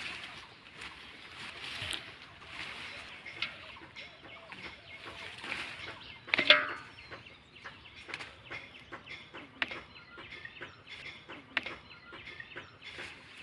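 Chickens clucking, with one sharp, louder sound about halfway through, over light rustling and snapping of leaves and stems as bean pods are picked by hand from the vines.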